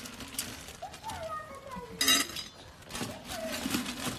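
Dry kibble rattling and clinking in a stainless steel feeding pan as hands and puppy mouths work through it, with one loud metallic clink about two seconds in.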